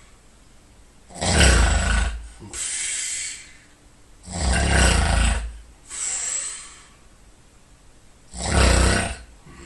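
A person snoring loudly in deep sleep: three loud snores on the in-breath, about three and a half seconds apart, the first two each followed by a softer, breathy exhale.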